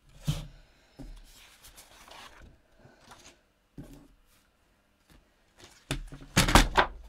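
Paper and cardstock rustling and sliding on a tabletop. About six seconds in there is a louder clatter of handling as a paper trimmer is set down with a sheet of patterned paper.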